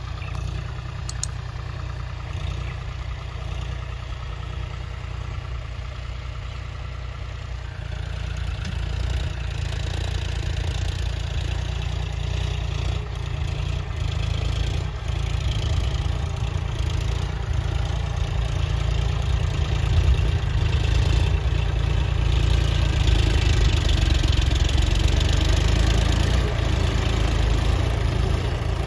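John Deere utility tractor's diesel engine running steadily while the tractor pulls a disc harrow through tilled soil, growing louder partway through and again in the second half as the tractor comes closer.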